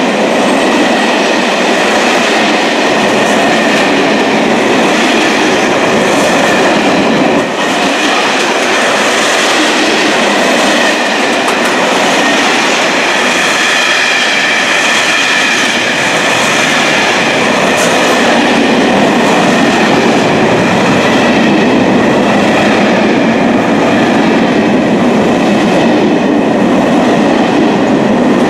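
Freight train of covered sliding-wall wagons and open wagons passing close by: a loud, steady rumble and rattle of wheels and wagon bodies, with a thin, steady high squeal of wheels over it.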